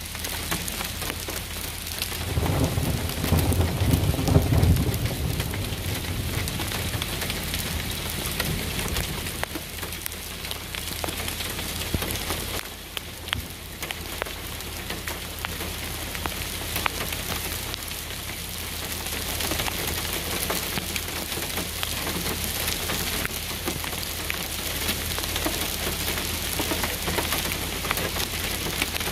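Hailstorm pelting down: a dense, steady patter of small ticking impacts mixed with rain. A low rumble swells between about two and five seconds in.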